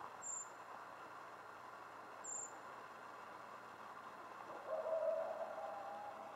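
Two tiny, very high-pitched bird chirps, about two seconds apart. About five seconds in comes a louder, drawn-out, steady animal call lasting over a second.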